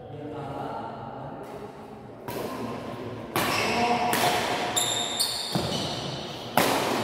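Badminton rackets striking the shuttlecock in a doubles rally: a few sharp cracks about a second apart, each ringing briefly in the large hall.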